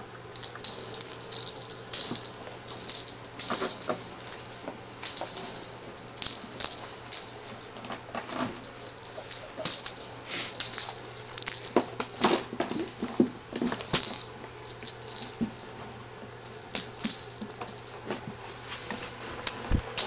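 Small bells jingling in irregular, rapid bursts, mixed with scrabbling clicks and knocks, as ferrets wrestle and chase each other in a wire playpen.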